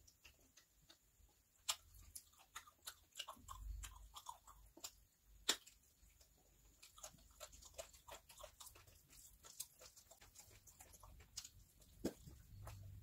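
Close-miked eating by hand: faint, irregular chewing and lip-smacking clicks as handfuls of biryani rice are eaten, with a few sharper clicks about 2, 5.5 and 12 seconds in.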